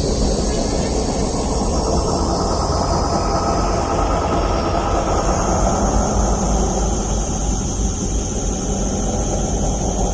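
Dark ambient horror drone: a steady low rumble with thin high tones held above it.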